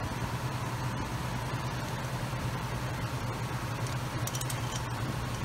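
Steady low mechanical hum, with a few light sharp clicks a little past four seconds in.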